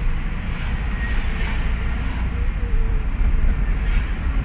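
Car in motion heard from inside its cabin: a steady low rumble of road and engine noise.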